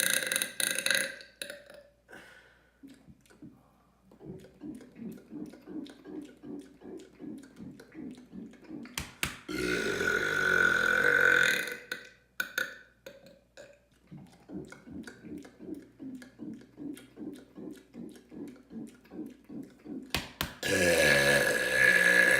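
A man's deliberate, really loud burps: two long ones, each lasting about two seconds, come about 10 seconds in and again near the end. Between them, quieter short sounds repeat about three times a second.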